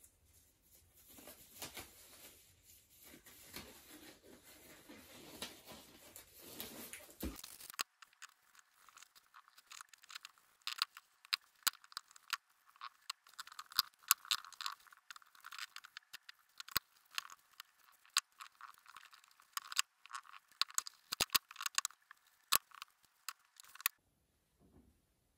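A brush applying hardwax oil to the walnut and purpleheart wood of a tray: the bristles scratch and crackle against the wood in dense, irregular clicks. Before that, about the first third, there is a softer rustling, and the clicking cuts off shortly before the end.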